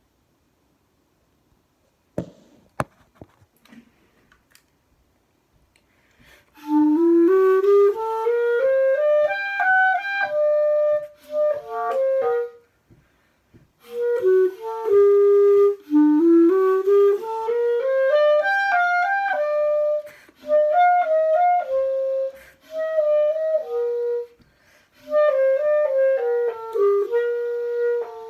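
Clarinet fitted with a 3D-printed copy of a Vandoren B45 mouthpiece, playing a melody in phrases of rising runs with short breaks between them; its tone is passable. A few clicks come before the first note.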